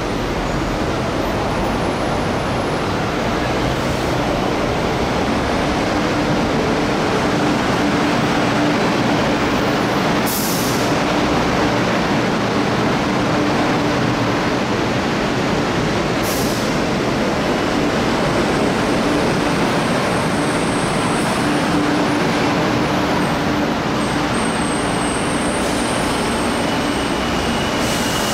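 MTR East Rail Line MLR (Metro-Cammell) electric train running through the platform without stopping: a steady loud rumble of wheels on rails with a constant hum under it. Two short hisses come about ten and sixteen seconds in.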